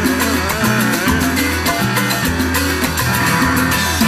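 Salsa played live on an electric stage piano and a pair of congas, with repeated conga and percussion strikes over a bass line.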